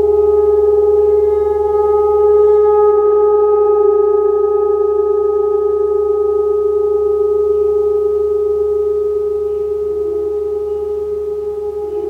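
Sound-bath instrument ringing with a sustained, steady tone and a few clear overtones; the highest overtones die away within the first few seconds.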